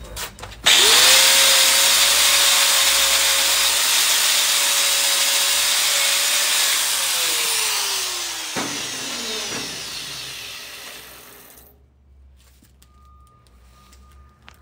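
Angle grinder starting about a second in and grinding on steel, a loud hiss over a steady motor whine. Around seven seconds in it is switched off: the whine falls as the disc spins down, with a click near the end of the run-down, and the sound fades out a few seconds later.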